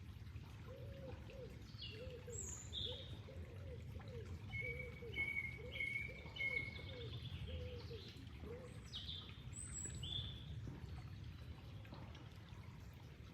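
Flowing water with birds calling over it: a run of low, arched notes repeated about a dozen times over the first eight seconds, and higher chirps and short falling whistles scattered through.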